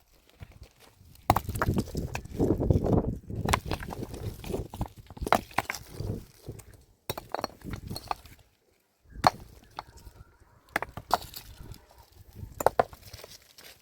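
Stones and rock being worked by hand: irregular hard knocks and clinks of stone on stone, with a stretch of scraping and crunching near the start.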